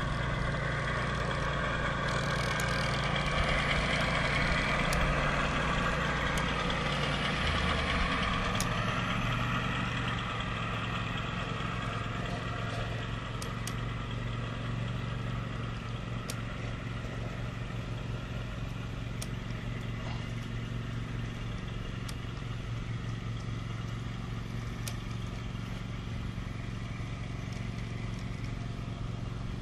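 G scale model train rolling past on its track: a steady mechanical hum from the locomotive and the wheels, with scattered sharp clicks, growing slightly quieter as the locomotive moves away.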